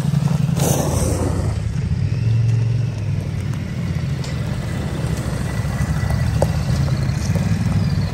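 Ducati motorcycle engine running under way, swelling slightly about two seconds in, with a brief rush of noise under a second in.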